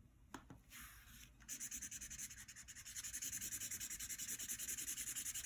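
Red felt-tip marker colouring on paper. A light tap, a short stroke about a second in, then steady rapid back-and-forth scribbling strokes, several a second, from about a second and a half in.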